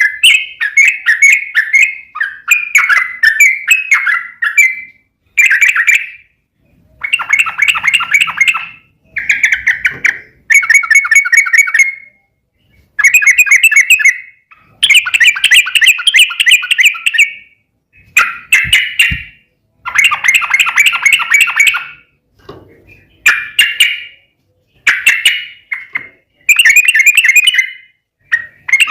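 Yellow-vented bulbul singing: a series of loud phrases of rapid chattering notes, each one to two and a half seconds long, with short pauses between them.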